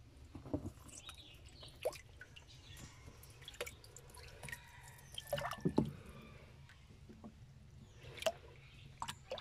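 Faint water dripping and small splashes, coming irregularly, with a louder cluster of splashes about five and a half seconds in.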